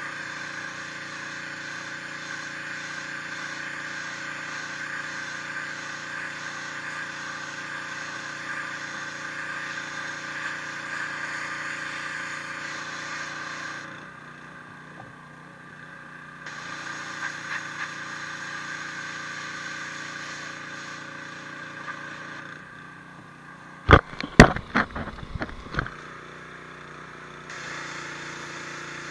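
High-pressure washer running with the hiss of its spray jet; the spray cuts out twice, the motor running on underneath. During the second pause a quick cluster of loud sharp knocks is heard.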